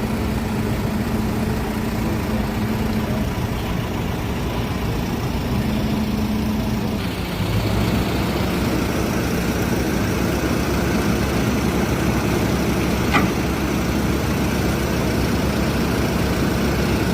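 Heavy construction machine's engine running steadily. About seven seconds in, its sound shifts to a fuller, hissier running note, and there is a brief sharp click about thirteen seconds in.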